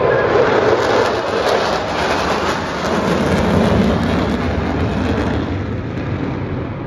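Four USAF Thunderbirds F-16 Fighting Falcon jets flying a 360-degree turn in afterburner: loud, steady jet noise with a deep rumble and a crackle, fading slowly near the end.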